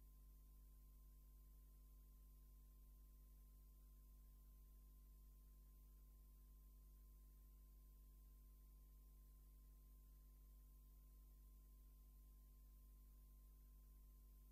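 Near silence: only a steady low hum with a faint steady tone and hiss underneath.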